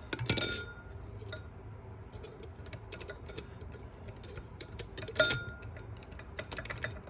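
Steel and friction clutch plates of a 4L60E transmission clutch pack clinking as they are handled and settled in the drum. There are two sharp metallic clinks with a short ring, about a third of a second in and again about five seconds in, and light ticking and tapping between them.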